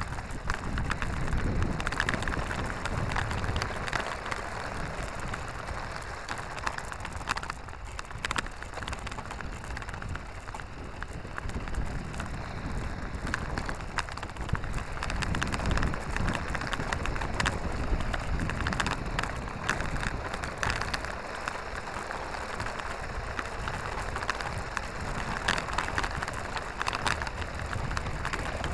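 Small plastic wheels of a toy trailer, towed by a radio-controlled toy car, rolling over coarse asphalt: a continuous crackling rattle with scattered sharp clicks, picked up through a camera mounted on the trailer.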